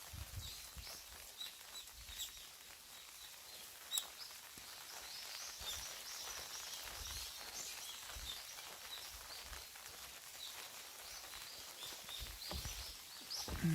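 Small birds chirping and twittering throughout, many short high calls. There are soft low thumps now and then, a sharp click about four seconds in, and a louder thump near the end.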